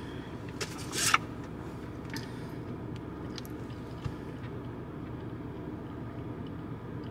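Steady low hum of a stationary car's cabin, with a short rustling scrape about a second in.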